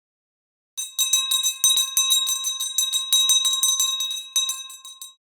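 A small metal bell rung rapidly and repeatedly for about four seconds, a quick irregular run of strikes with bright ringing tones that starts about a second in and stops abruptly.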